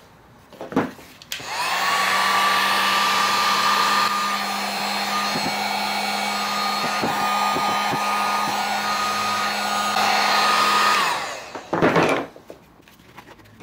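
Corded heat gun switched on and blowing steadily for about nine seconds, its fan whine rising as it starts and falling as it is switched off and spins down, while it heats a stretched-out plastic handle part to reshape it. A few knocks follow as it is handled.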